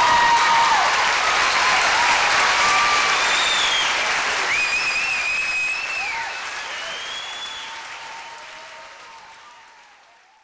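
An audience applauding and cheering at the close of a speech, fading out over the last few seconds.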